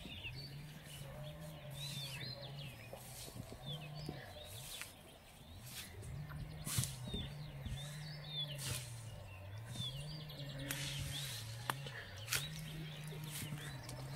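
Small birds chirping and singing, with scattered rustles and clicks, over a low hum that steps back and forth between two pitches.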